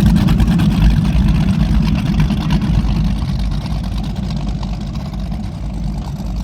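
High-performance powerboat engines running with a deep rumble, loudest at first and slowly easing off as the boat moves away.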